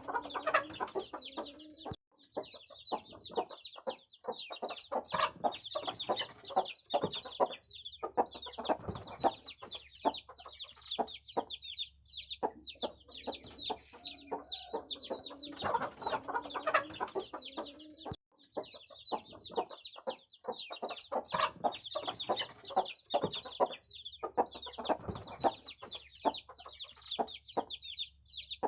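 Aseel chicks peeping: a dense, continuous chorus of short, high, falling cheeps, with lower clucking calls now and then and scattered sharp clicks.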